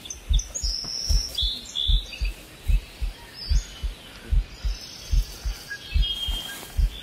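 Heartbeat sound effect: deep double thumps (lub-dub) repeating steadily about every 0.8 seconds, with small birds chirping high above it.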